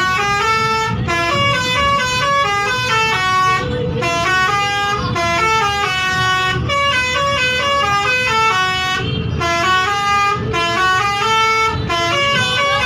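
Basuri multi-tone bus horn playing a melody: loud horn notes stepping up and down one after another in short phrases, each phrase broken by a brief gap.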